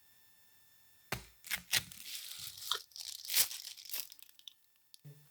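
Snack packaging being torn open and crinkled: a run of sharp rips and crackles starting about a second in and stopping about four seconds in.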